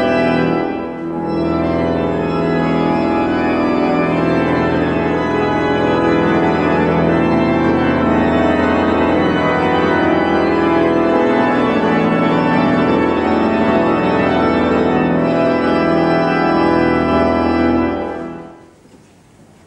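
Church pipe organ played in a recital: full chords held and moving on, with a short dip about a second in. The playing stops about 18 seconds in and the sound dies away over about a second.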